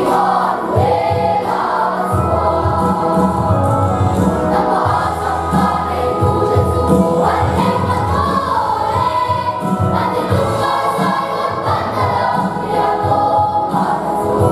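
Children's choir singing together, long held notes gliding from one pitch to the next, at a steady level throughout.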